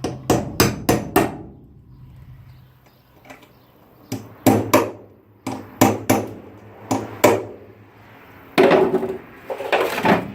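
Hammer striking a worn drill bit used as a punch, knocking clipped rivets out through a Sprinter van's metal floor. The blows come in bursts: about five quick strikes at the start, then a pause, then more blows in pairs and singles, with a denser cluster near the end.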